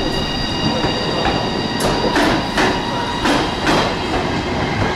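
Lastochka electric train on the next track, with a steady rumble and a high whine of several steady tones. Its wheels clack over rail joints again and again, often in pairs.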